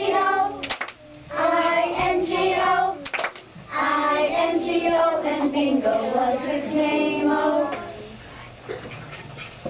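A group of young children singing a song together, with a couple of sharp claps between lines; the singing stops about eight seconds in.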